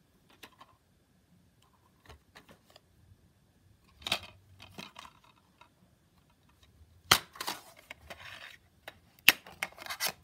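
A plastic DVD case being handled: light taps and scrapes as it is turned over, then sharp plastic clicks and rustling as the case is snapped open and the disc is pressed on its hub, the loudest click about seven seconds in.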